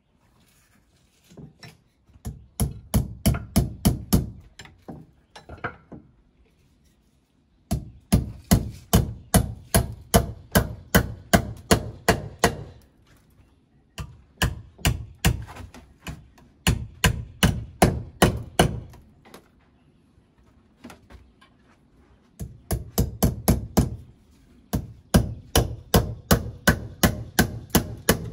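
Hammer driving a hand-forged iron lantern hanger into a log wall: runs of quick, even strikes, about four a second, broken by short pauses.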